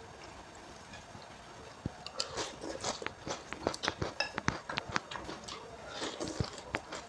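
Close-up mouth sounds of chewing instant noodles with raw bean sprouts: wet, crisp crunches and smacks, with a rapid run of irregular crunching clicks starting about two seconds in.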